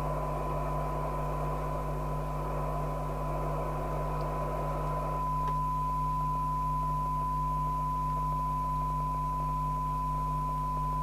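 A steady test tone from the Harrier CBX CB radio's receiver, demodulated from a weak test signal, with a low mains hum under it. A hiss around the tone drops away about five seconds in, leaving the tone cleaner.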